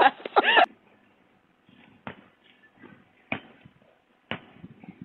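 Basketball bouncing on a brick-paver patio: three sharp bounces about a second apart, picked up by a Ring security camera's microphone.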